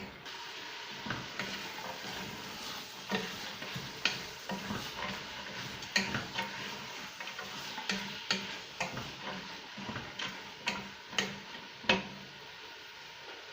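Soaked chickpeas, lentils and fava beans frying with onion and spices in oil in a cooking pot, sizzling steadily while a spoon stirs them and knocks irregularly against the pot. The knocking stops near the end and the sizzle goes on.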